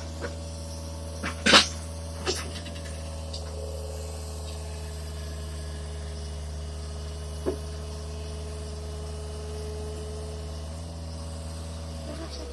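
Heavy-machinery engine running at a steady idle, a low even hum, with a few sharp knocks, the loudest about a second and a half in; the engine sound dies away at the very end.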